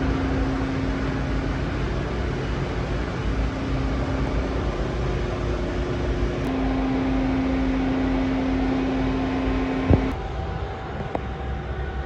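Steady mechanical running noise with a steady low whine, then a sharp click about ten seconds in, after which the whine stops and the noise drops quieter.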